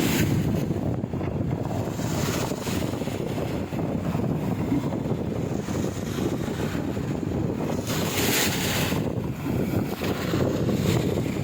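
Wind buffeting the microphone over the wash of sea water, with a brief louder hiss about eight seconds in.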